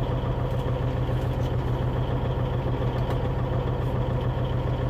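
Diesel engine of a Volvo semi-truck idling steadily, heard from inside the cab as an even low drone.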